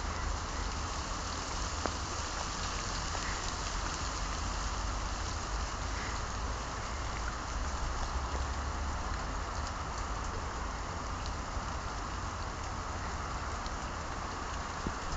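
Wet snow falling, a steady even hiss like light rain, with a low rumble underneath and a few faint ticks.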